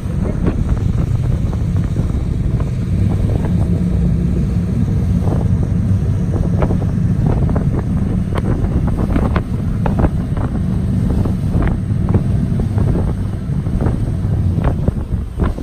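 Motorboat engine running steadily under wind buffeting the microphone, with frequent sharp slaps of the hull on the choppy water from about five seconds in.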